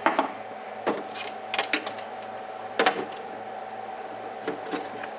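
A series of sharp clicks and knocks from small parts being handled and set against the RC truck, about seven in all, the loudest near the start and about three seconds in, over a steady hum.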